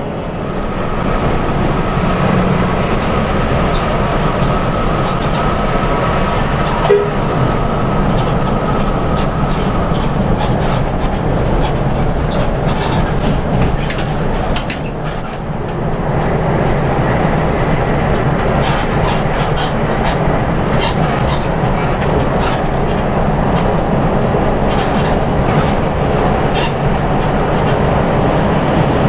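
Cabin noise inside a coach bus running at highway speed: a steady engine drone and road rumble. A faint whine fades out about a third of the way through, and short rattles and clicks from the cabin come through for the rest.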